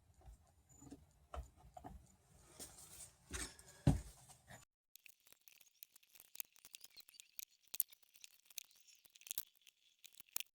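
Faint, scattered small clicks and scrapes of glue being worked into a crack in a wooden tiller by hand, with one louder knock about four seconds in.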